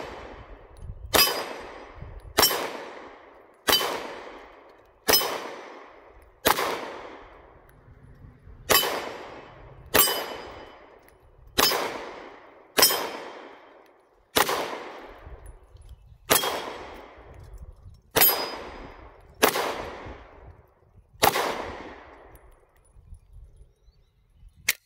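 Glock 19 Gen 5 9mm pistol firing slow single shots at hanging steel plates, about fourteen shots roughly one every second and a half. Each shot is followed by a ringing clang from the steel as it dies away. The shooting stops near the end, with the slide locked back on an empty magazine.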